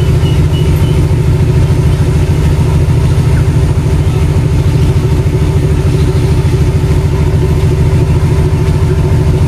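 Diesel engine of a Sri Lanka Railways Class M9 diesel-electric locomotive idling at a standstill: a loud, steady, deep drone that doesn't change.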